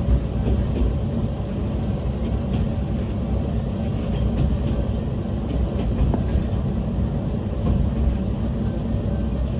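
Yamagata Railway diesel railcar running along the line: a steady low rumble with faint scattered clicks from the wheels and track.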